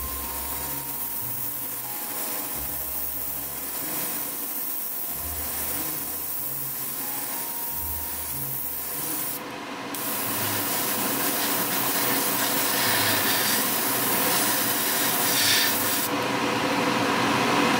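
Steady rushing air from a paint spray booth's extraction fan running, growing louder in the second half.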